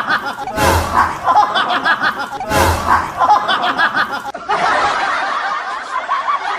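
Snickering laughter, the same laugh repeating about every two seconds, then a different stretch of chuckling laughter from a little past the middle.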